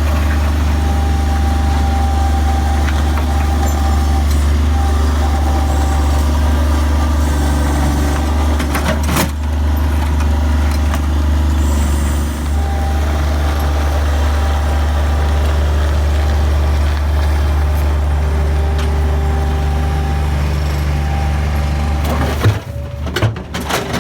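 Skid steer engine running steadily under load, with a short knock about nine seconds in.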